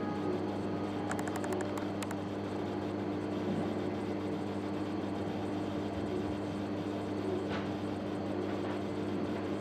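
Steady low hum of running aquarium equipment, with a constant hiss over it. A few faint light clicks come between one and two seconds in.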